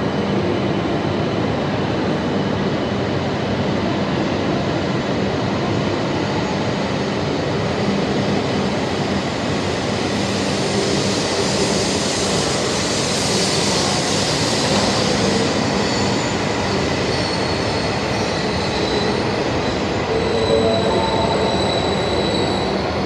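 E5 series Shinkansen train running along an underground station platform: a steady, echoing rumble of wheels and running gear. A hiss swells over the middle seconds as the end of the train goes by. In the last few seconds another E5 pulls in, and thin steady tones join the rumble.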